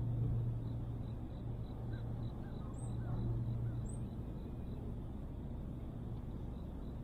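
Birds chirping a few times, short high calls, over a steady low drone. A faint run of quick, even high ticks, about four a second, fades in and out.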